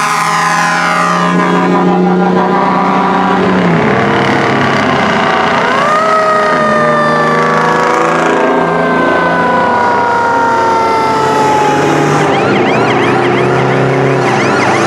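Fire engine sirens wailing as several trucks pass in procession, with their engines running underneath. About five seconds in, one siren winds up sharply, then slowly winds down in pitch over the next several seconds.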